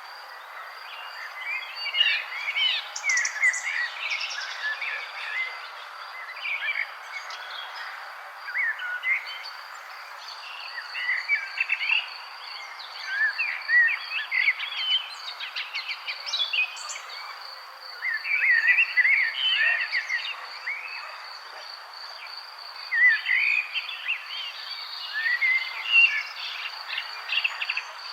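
Songbirds chirping and twittering in quick clusters every few seconds, over a steady high-pitched pulsing trill and a constant background hiss of outdoor ambience.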